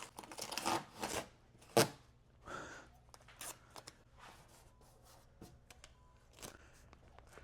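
Tape being torn off the roll and rubbed down: short rustling and scraping sounds, with one sharp tear about two seconds in.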